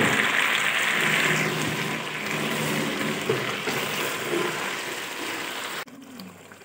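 Chicken, onions and tomato paste sizzling in hot oil in a steel pot while being stirred with a wooden spoon. The sizzle is loudest in the first second or so, then dies down, and cuts off suddenly near the end.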